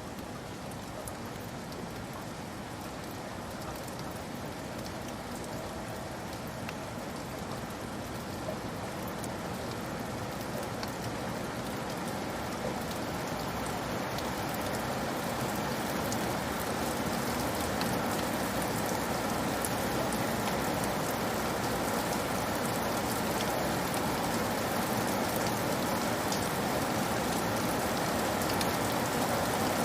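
Steady rain falling on a cabin roof, with individual raindrops pattering through the hiss. The rain grows gradually louder.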